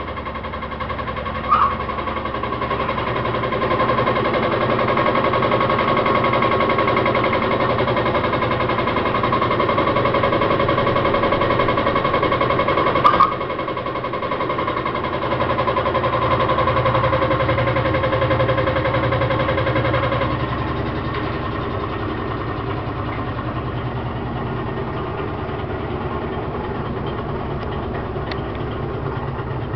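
GE washing machine running with a loud, steady mechanical hum and whine, with a short knock twice; about two-thirds of the way through, the whine drops away and the hum goes on more quietly. The owner says this noise is not caused by the amount of laundry: it is the same with only a napkin inside.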